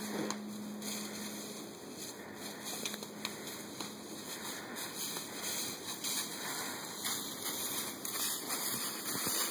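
Dry fallen leaves rustling and crunching underfoot as people move through leaf-covered woods, an uneven crackle with no clear rhythm.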